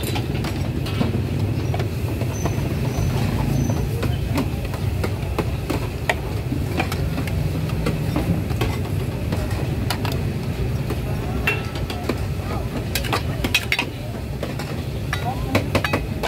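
Busy street-market ambience: a steady low rumble of traffic and crowd hubbub, with scattered sharp clicks and knocks that come thickest near the end.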